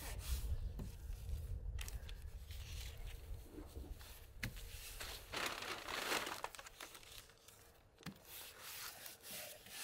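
Blue painter's tape being torn and its strips pressed and smoothed onto the window glass and van body, with crackling rips and one longer, louder rasping tear about five seconds in.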